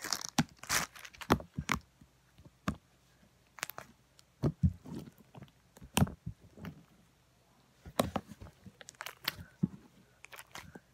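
Slime being pressed, poked and stretched by hand, giving irregular sticky clicks and pops with short quiet gaps between them.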